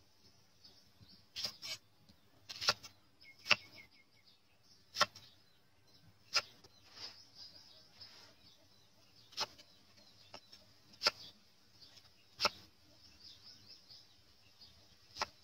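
Large knife chopping through an onion and knocking on a thick wooden chopping block: about ten sharp, separate chops, one every second or two.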